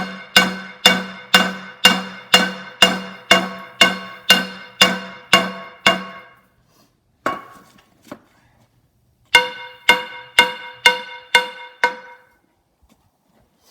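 Hammer blows ringing on a hot 4-inch cable-tool drill bit and anvil, reshaping the bit's worn cutting edge: a steady run of about two ringing strikes a second, a pause with two single blows, then a second run of about six strikes near the end.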